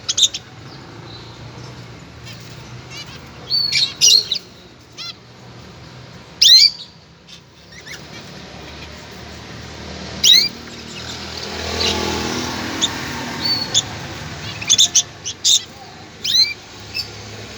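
Small birds chirping: short, sharp calls in scattered clusters every few seconds, over a faint steady hiss.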